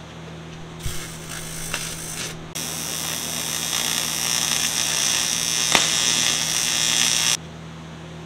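AC TIG welding arc on 1/8" aluminum diamond plate, buzzing and hissing: a short tack of about a second and a half, then a longer weld of about five seconds that cuts off suddenly, with one sharp crackle in the middle. A steady low hum runs under it.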